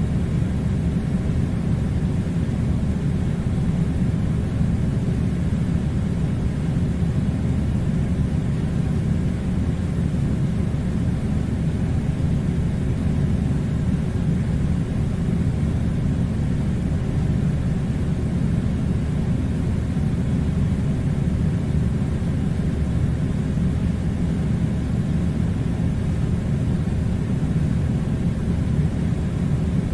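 Air conditioner running with a steady low rumble and hiss.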